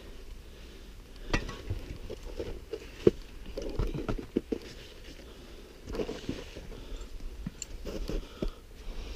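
Scrambling over rock: scuffing steps and scattered sharp knocks of boots and hands on rock, with rustling of clothing and pack, close to a body-worn camera.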